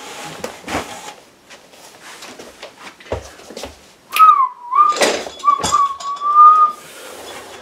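A person whistling one wavering note for about two and a half seconds, starting about four seconds in; the note dips briefly and then holds. Scattered knocks and thumps of someone moving about come with it, the loudest about five seconds in.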